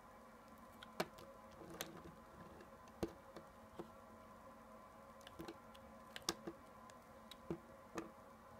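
Soft glycerin soap being cut with a knife: faint, irregular crisp clicks and crackles as the blade snaps through and the slices are handled, about a dozen over the span.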